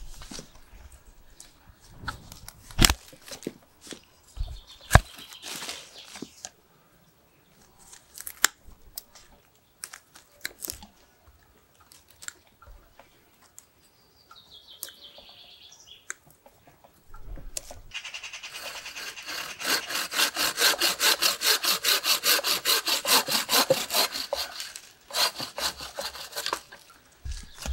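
Scattered snips and cracks of a bonsai cutter biting chunks out of a ficus trunk. Then, for about seven seconds, a hand pruning saw cuts through a thick ficus branch in quick, even back-and-forth strokes, about four a second; these are the loudest sounds.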